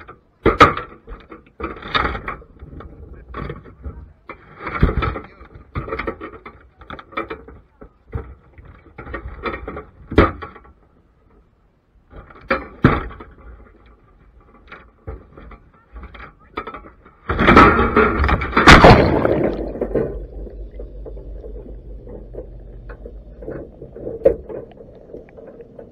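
Metal wire crab pot, with the microphone mounted inside it, knocking and clattering as it is handled and swung out, then hitting the water with a loud splash about two-thirds of the way through. After that the sound turns low and muffled as the pot sinks underwater.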